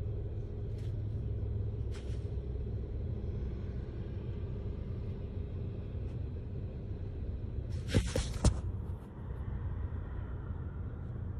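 A steady low rumble, with two sharp clicks and a short hiss about eight seconds in.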